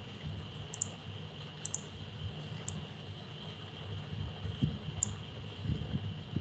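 A few faint, sharp clicks, spaced about a second apart, over a steady thin high hum and low background noise.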